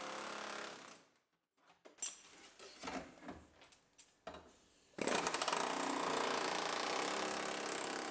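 Pneumatic air chisel hammering rapidly through the sheet-metal quarter panel, starting about five seconds in and running about four seconds. Before it, a steady tool sound cuts off about a second in, followed by a few scattered metal clanks.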